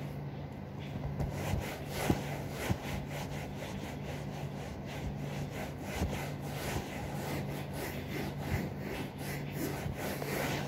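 Sofa upholstery being scrubbed by hand, quick, even back-and-forth rubbing strokes at about three a second.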